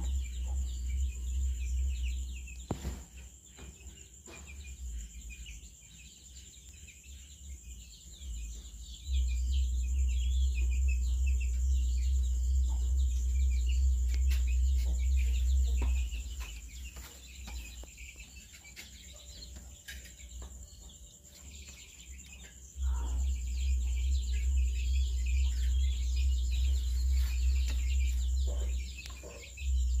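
Faint chicken and small-bird calls, short chirps scattered throughout, over a thin steady high whine. A low rumble comes in twice for several seconds each time and is the loudest thing heard.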